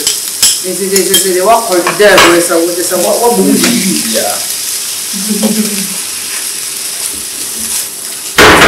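Vegetables stir-frying in a wok: a steady sizzle, with a silicone spatula scraping and tossing them against the pan. Near the end comes one short, loud knock.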